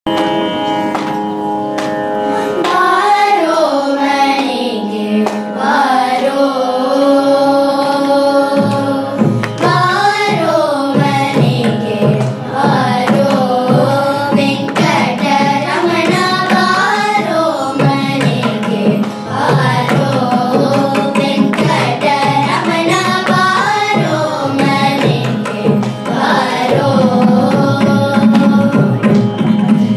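A group of children singing a Carnatic devotional song in unison, accompanied by a mridangam whose strokes come in about nine seconds in.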